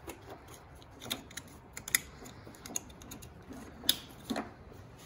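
Light plastic clicks and rustling from a hand working wires and plug-in connectors of an engine wiring harness, with the two sharpest clicks about two and four seconds in.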